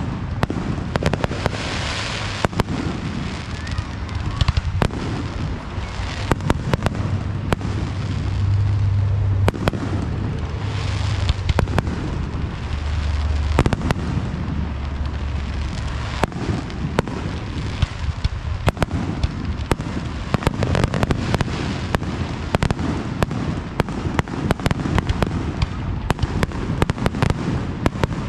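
Aerial fireworks display: shells bursting overhead in a dense, unbroken run of bangs and crackles.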